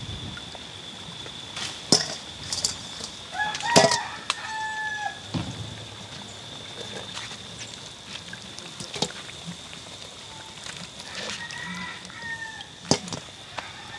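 A rooster crowing twice, once about three and a half seconds in and again near the end, with a few sharp knocks and a steady high tone in the background.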